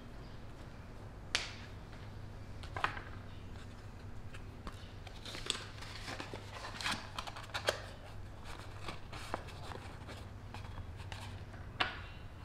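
Cardboard chain boxes being handled and moved on a workbench top: scattered light taps, clicks and rustles, busiest in the middle, over a steady low hum.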